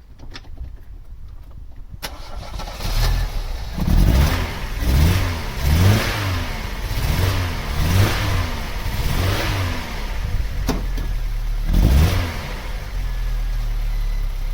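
Vauxhall Cavalier's 1.8-litre four-cylinder engine with an SRi 130 top end starting about two seconds in, then revved in six quick blips and once more later before settling to idle. It is running with a misfire.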